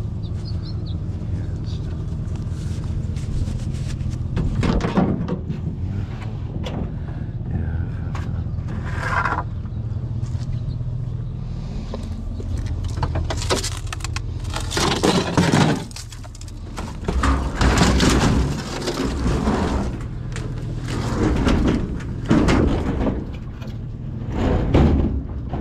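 Vehicle engine idling steadily, with intermittent loud clanks and thuds of metal scrap appliances being handled and loaded.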